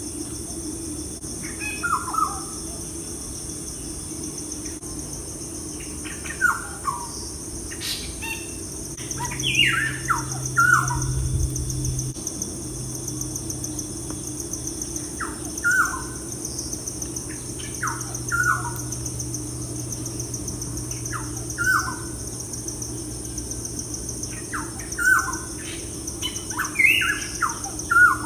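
Small birds chirping: short calls sliding down in pitch, singly or in quick pairs, every couple of seconds, over a steady high hiss and a low hum.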